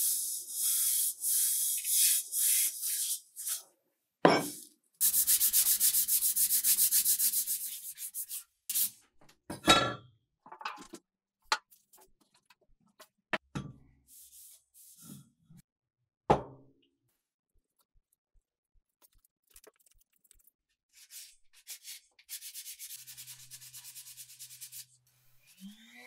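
Hand sanding paint off a vintage bicycle pump's metal barrel: runs of quick scratchy back-and-forth strokes, broken by three sharp knocks as the tube is handled.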